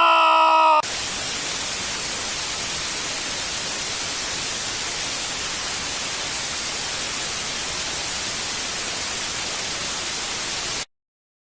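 Steady static hiss like white noise, running evenly for about ten seconds and then cutting off suddenly to silence. Just before it, a held pitched tone, slowly falling, breaks off abruptly.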